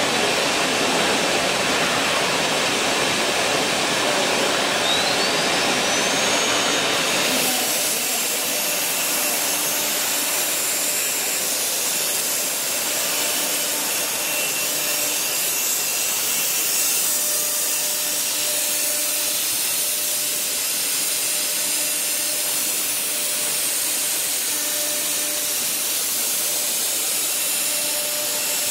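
Four-spindle CNC router running. A spindle's whine rises in pitch and then holds. About seven seconds in the sound changes abruptly to the steady noise of a spinning router bit cutting into a wooden board.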